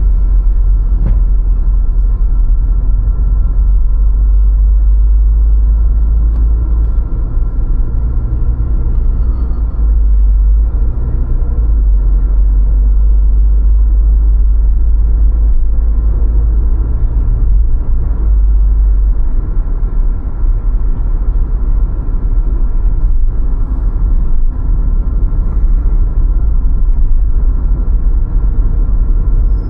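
Car driving with a steady, heavy low road-and-engine rumble, dipping slightly at a few points, with a faint steady whine over it.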